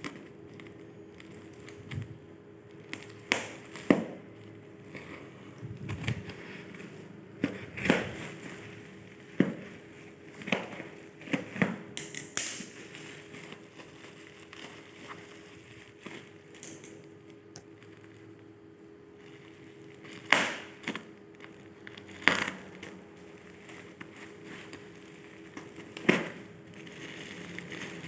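Watch packaging being handled and opened: irregular rustles, crinkles and light knocks, with a faint steady hum underneath.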